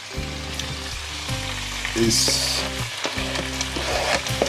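Chicken frying and sizzling in a pan, with stirring. The sizzle flares up louder for about half a second, about two seconds in.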